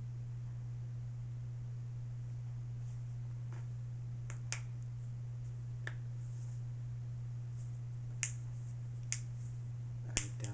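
Idle finger snapping: scattered sharp snaps, the first about four and a half seconds in and several close together near the end, over a steady low electrical hum.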